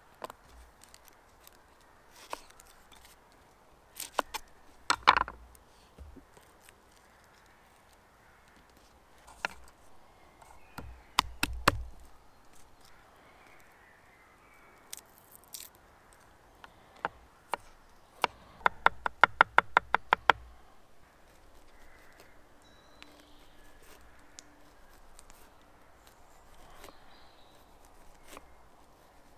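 Kitchen knife cutting vegetables on a wooden chopping board: a few scattered knocks, then about two-thirds of the way through a quick run of chops, roughly eight a second, lasting a couple of seconds.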